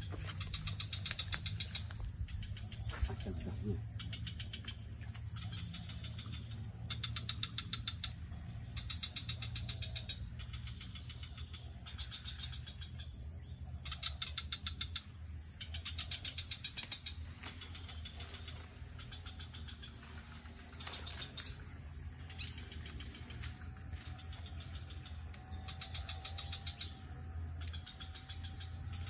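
Swamp insects trilling: cricket-like chirps in rapid pulse trains about a second long, repeating one after another. Underneath are a steady high-pitched tone and a low steady rumble.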